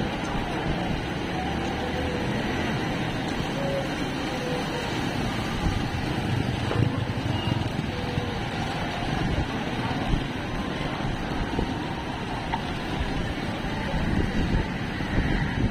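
Steady vehicle and traffic rumble with faint voices mixed in.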